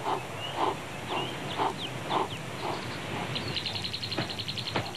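Cheetah panting hard in quick, even breaths, about two a second, exhausted after a high-speed chase. Birds chirp over it, and a fast high trill comes in over the last second and a half or so.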